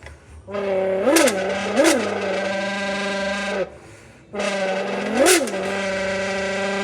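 A person imitating a revving engine with their voice: a steady engine drone broken by short revs that rise and fall in pitch, four in all. It pauses for a breath partway through and then resumes.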